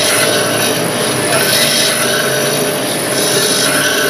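A Metabo DS 200 bench grinder's wheel spinning against a T-shaped diamond dresser that is slid across its face to true and even out the stone. The grinding scrape is steady under a high whine and swells every second or so as the dresser moves across.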